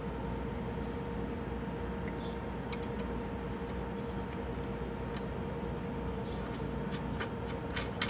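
Light metallic clicks of steel washers and a nut being fitted by hand onto a flange bolt. There are a few faint clicks about three seconds in and a quick run of sharper clicks near the end, over a steady background hum.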